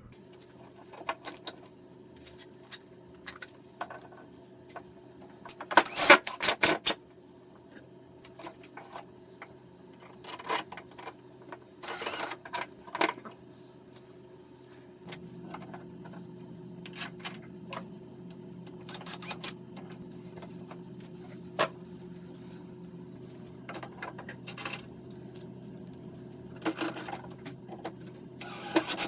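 A 3D printer running: a steady motor and fan hum that gets louder about halfway through, with scattered clicks and clattering, loudest about six and twelve seconds in.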